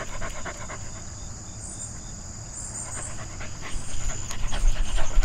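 A dog panting in quick, rhythmic breaths, several a second; the panting dies away about a second in and picks up again near the end. Insects sing steadily in the background.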